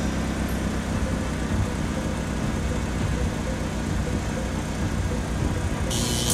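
Cartoon sound effect of a car engine running steadily with a low rumble. A loud hiss comes in near the end.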